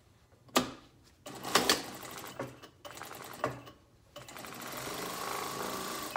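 Brother sewing machine stitching through folded layers of cotton fabric in short stop-start runs, then a longer steady run with a held motor tone in the second half.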